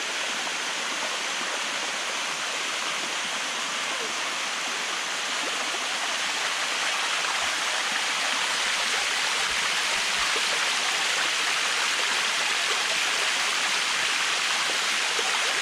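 Water of the Bua Tong 'Sticky' Waterfall rushing steadily down the cascade, close by; the rushing grows a little louder about halfway through.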